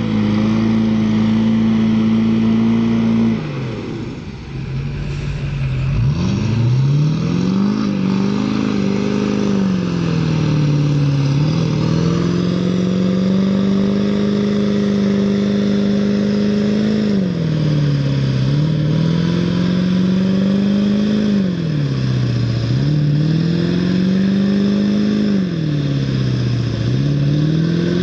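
2002 Chevy Silverado's 6.6-litre Duramax V8 turbo-diesel held at high revs as the stuck truck tries to pull out of the mud. The revs fall off for a couple of seconds early on, then sag and climb back several times, every four or five seconds.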